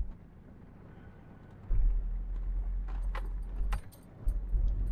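Ford Ranger pickup driving over a rough dirt track: heavy low rumbling that comes in about two seconds in, drops out briefly near four seconds and returns, with a cluster of rattles and clicks just before the drop.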